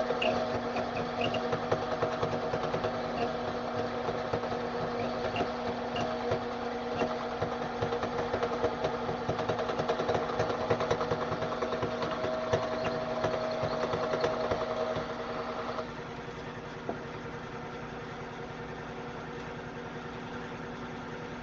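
Metal lathe running with a form cutter in the cut: a steady machine hum under a fast, even rattle. About sixteen seconds in, the cutting noise stops and the lathe runs on more quietly.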